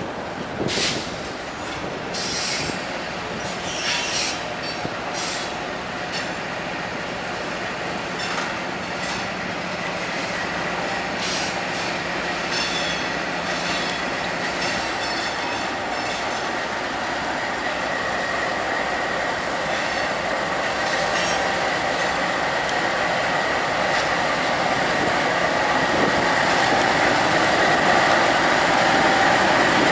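Freight train passing: tank and hopper cars roll by with sharp clicks and knocks from the wheels on the track. A steady high wheel squeal sets in about halfway through, and the sound grows louder near the end as a Union Pacific diesel locomotive in the middle of the train comes alongside.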